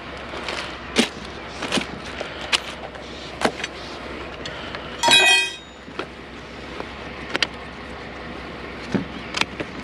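Scattered clicks and knocks of items being handled while picking through a curbside junk pile, with a brief high squeak about five seconds in.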